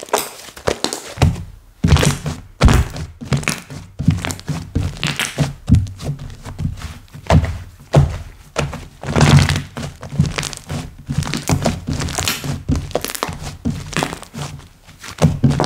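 Hands squishing, pressing and folding slime: dense, irregular clicks and crackles with soft low thuds.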